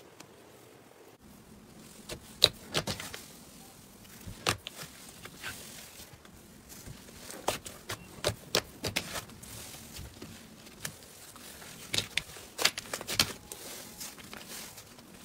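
Slime being stretched, folded and pressed by hand, giving off irregular sticky clicks and pops that start about two seconds in.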